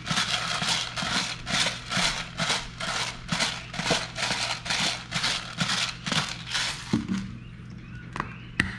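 Black pepper bottle worked over the fish: a gritty rattle repeating about three times a second that stops about seven seconds in. A couple of sharp plastic clicks follow near the end.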